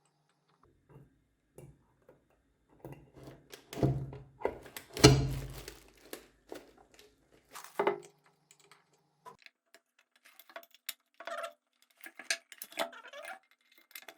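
Metal scooter parts and hand tools clinking and knocking irregularly, with louder thunks about four and five seconds in, as the kick-start spring and gears are worked into place on a GY6 engine.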